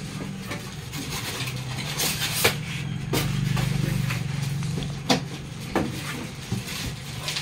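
Cardboard and foam packing pieces rubbing and scraping against the box as they are pulled out of a printer carton, with several sharp knocks. A low hum swells up in the middle and fades.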